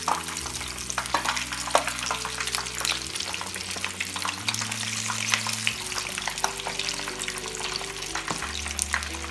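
Breaded chicken cutlet deep-frying in hot oil in a small pan: a steady crackling sizzle full of sharp pops, with a few louder clicks as the cutlet is lifted and turned over with metal tongs.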